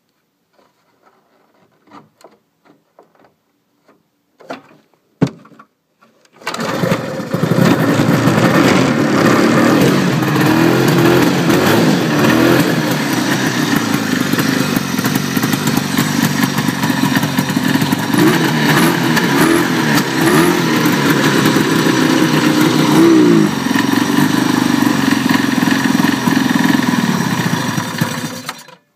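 A 1973 Arctic Cat Cheetah 440 snowmobile's two-stroke engine is recoil-started and catches about six seconds in, after a few knocks and a sharp pull. It runs loudly, with the revs rising and falling several times, then cuts off suddenly near the end.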